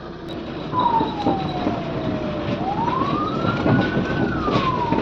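Ambulance siren wailing, starting about a second in with one slow falling, rising and falling sweep. Under it is the road noise and rattle of the moving ambulance.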